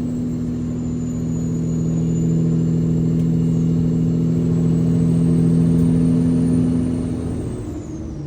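Semi-truck diesel engine running steadily at cruising speed while hauling a heavy excavator load, with a thin high whine above it. About seven and a half seconds in, the engine note and the whine both drop as the truck eases off or shifts.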